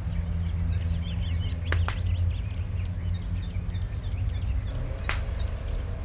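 Small birds chirping in quick, irregular calls over a low steady hum. Sharp snaps cut through: two close together about two seconds in, and one more about five seconds in.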